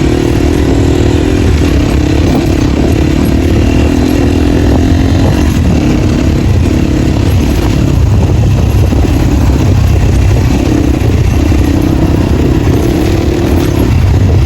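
250cc dirt bike running loud without its dB killer (exhaust baffle) while riding offroad. The engine note dips and rises a few times with the throttle.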